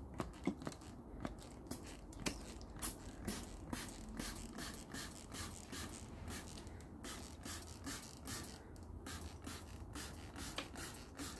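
Hand-held trigger spray bottle being pumped over and over, a quick squirt of oil a couple of times each second, spraying onto a wooden carving.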